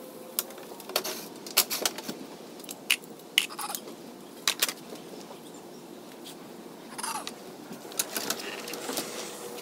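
Scattered metallic clicks and light knocks of a cordless drill and its bit being handled and set down, then gate hardware being worked, with a brief falling squeak about seven seconds in. The drill motor does not run.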